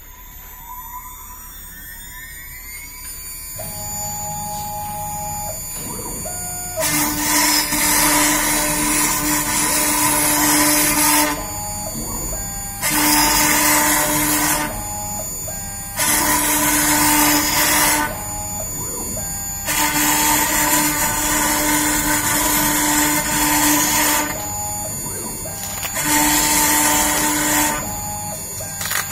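CNC router's water-cooled spindle spinning up with a rising whine over the first few seconds, then the machine running steadily with a hum. From about a quarter of the way in come five loud stretches of a few seconds each, with quieter gaps between them, as the router bit cuts in passes.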